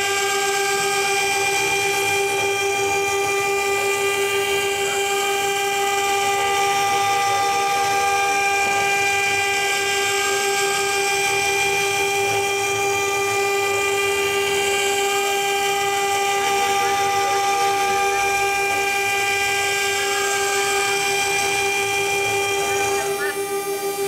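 CNC router spindle with an end mill cutting a circular pocket into aluminum plate: a loud, steady whine of several pitched tones layered together over a rough cutting hiss, easing slightly just before the end.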